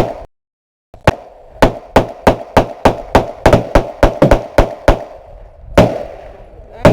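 Gunfire at a shooting range: a single shot, then a rapid string of about twenty shots over some four seconds, then two more shots spaced about a second apart. The recording cuts out for about half a second just after the first shot.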